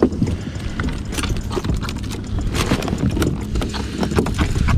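Small fish flapping and slapping on a kayak's hard plastic deck while they are taken off a multi-hook rig: a run of irregular knocks and taps.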